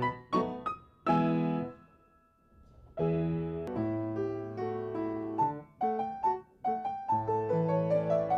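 Solo piano playing ballet-class accompaniment: short detached chords, then a held chord that dies away into a pause of about a second. The playing resumes with held bass notes under repeated chords.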